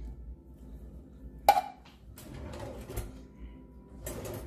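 Kitchen utensil and cookware knocking as canned soup is spread into a glass casserole dish. There is one sharp clank with a short ring about a second and a half in, then a few lighter clicks and knocks, and another cluster of knocks near the end.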